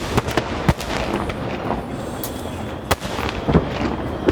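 Aerial fireworks going off in quick succession: a dense run of sharp bangs and crackles over a continuous rumble.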